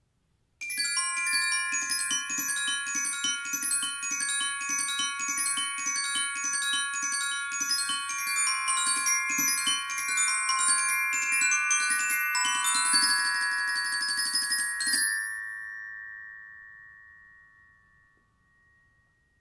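Glockenspiel played fast with two mallets: a quick, unbroken run of bright, high, ringing notes. About fifteen seconds in the playing stops and the last notes ring on, fading out over a few seconds.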